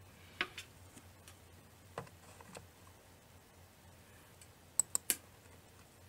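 Light clicks and taps of a plastic ruler and pencil being set down and handled on a wooden board while lines are marked. A few scattered clicks, then three sharp clicks in quick succession about five seconds in, over a faint low hum.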